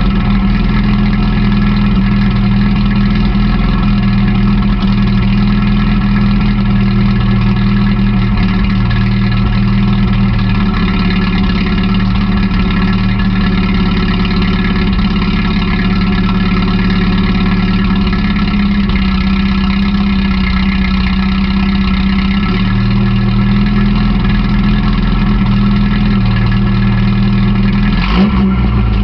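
Toyota pickup's 20R/22R hybrid four-cylinder engine idling steadily at operating temperature, heard close to the tailpipe through a new Raptor muffler. The warm idle is smooth and even, not lumpy.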